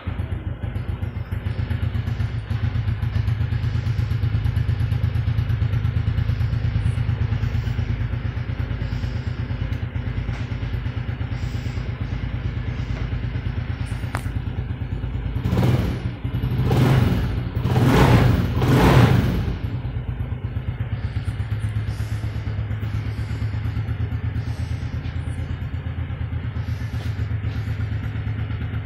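An engine idling steadily. About halfway through, it is revved up and back down about four times in quick succession, then it settles back to idle.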